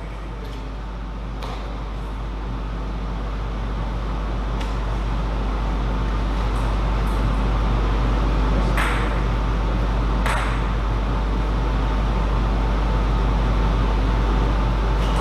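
Steady background noise of a sports hall with a constant low hum, slowly growing louder. A few isolated sharp taps, like a table tennis ball being bounced, come a few seconds apart.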